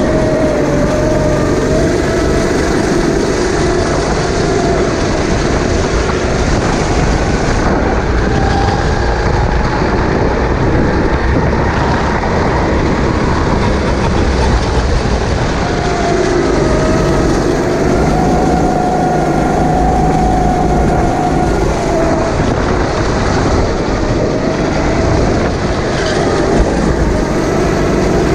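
Sodi kart's engine running at racing pace, its pitch rising along the straights and dipping through the corners, over a heavy low rumble of wind on the onboard microphone.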